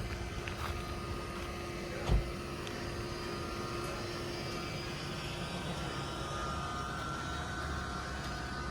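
Steady low rumble of a vehicle driving slowly, with a single short thump about two seconds in.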